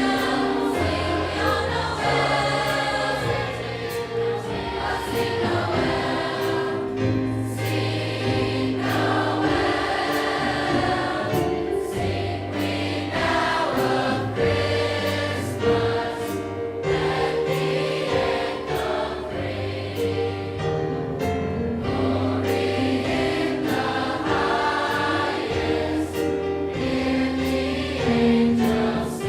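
Large high school choir of about 200 voices singing a Christmas song in full chords, the low notes moving under held upper parts.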